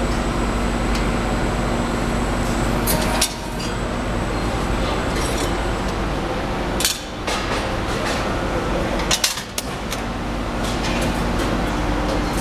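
Hydraulic system of an Amada HFE press brake running with a steady hum. Sharp metallic clanks of sheet-metal parts come about three, seven and nine seconds in.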